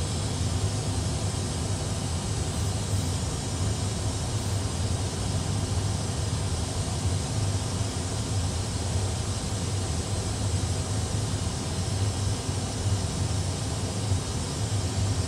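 Steady cockpit background noise in an Airbus A320 full flight simulator during an emergency descent, with the engines at idle and the speed brakes out: a low, even hum under a constant hiss of airflow.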